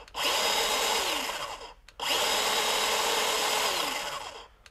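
Craftsman 20V 6-inch cordless pruning chainsaw running free with no load, its trigger pulled twice. Each time the electric motor and chain come up to speed at once, run steadily, then wind down with a falling pitch when the trigger is released. The first run lasts about a second and a half, the second about two and a half seconds. The chain speed is shown as not especially fast.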